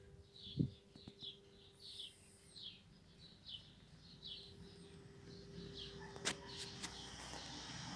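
A small bird repeating a short chirp about every three-quarters of a second. A low thump comes less than a second in, and a sharp click about six seconds in.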